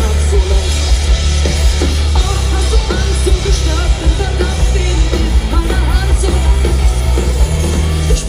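Live band playing a loud pop-rock song: drums, bass and electric guitars under a woman's singing voice, heard from the audience. The music breaks off abruptly at the end.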